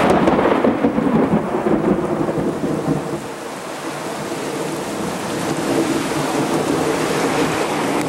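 Close thunder from a nearby lightning strike: a loud crack at the start that rolls on as a rumble and eases after a few seconds, over steady rain.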